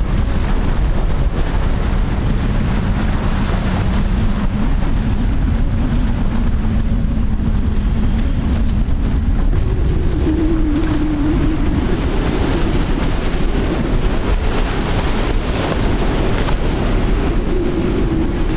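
Strong wind buffeting the microphone over surf, with a boat engine droning steadily and rising in pitch about halfway through.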